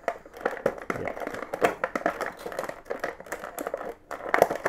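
Clear plastic blister tray crackling and clicking unevenly as hands press on it and pull action figures free from it.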